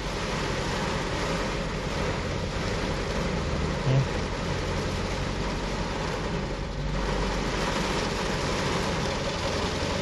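Heavy rain falling on a car's roof and windshield, heard from inside the cabin, over the steady running of the car's engine, whose noise is taken for a slack timing chain. A brief low thud about four seconds in.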